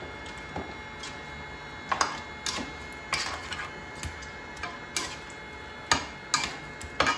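Silicone spatula knocking and scraping against a nonstick saucepan and the fish pieces in it, making irregular light clicks and taps.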